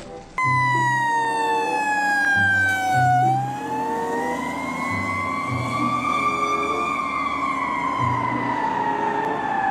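Fire truck siren wailing. A single tone sweeps slowly down, rises again, and falls back toward the end.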